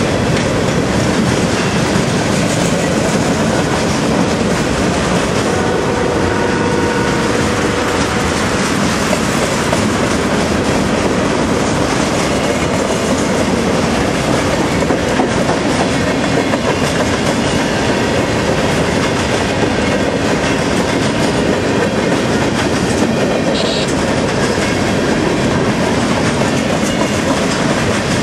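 CSX freight train rolling past close by: freight cars, covered hoppers and boxcars, going by on steel wheels in a loud, steady rush of noise with no letup.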